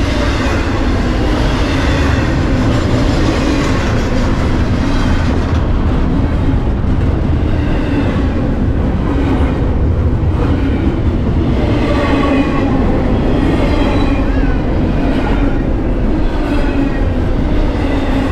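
Freight train of double-stack intermodal well cars rolling past: the steel wheels on the rails make a loud, steady running noise with clatter from the cars.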